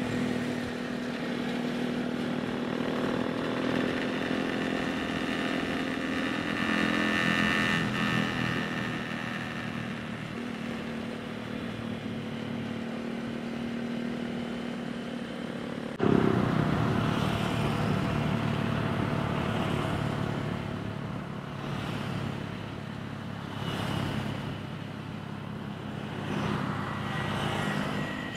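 Small single-cylinder motorcycle engine running under way, its pitch drifting up and down with the throttle. About halfway through the sound jumps suddenly louder.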